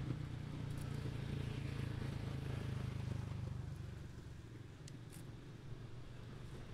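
Low, steady engine-like rumble of a motor vehicle running, fading away about four seconds in, with a couple of faint clicks.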